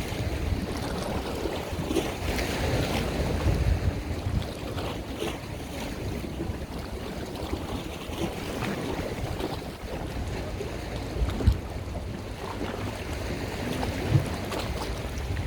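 Wind buffeting the microphone over the wash of water and boat noise, with two short sharp knocks, one a little past the middle and one near the end.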